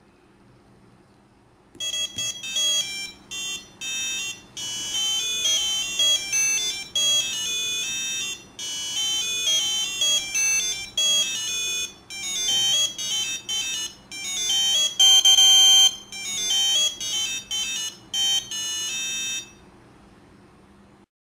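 Pololu 3pi robot's onboard buzzer playing a tune as a run of bright electronic beeping notes, one after another with short gaps. It starts about two seconds in and stops about two seconds before the end.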